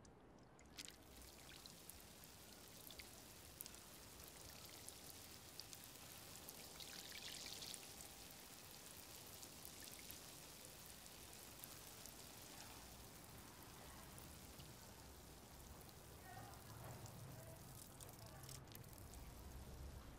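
Water sprinkling from a watering can's rose onto soil and tulip leaves: a faint, steady hiss of falling droplets with scattered small drips.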